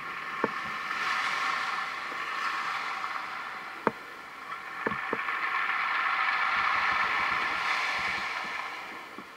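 Small waves washing up a pebble beach and draining back, the hiss swelling twice. There are a few short, sharp clicks.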